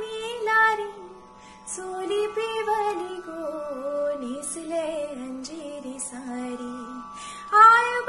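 A woman singing a Marathi Koli folk song solo, holding long notes and moving down through a slow, winding phrase in the middle, then coming back in louder on a high held note near the end.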